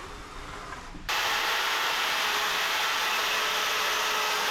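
Electric power sander running against a piece of pallet wood, switched on about a second in and held steady. A faint motor tone sits under the sanding noise.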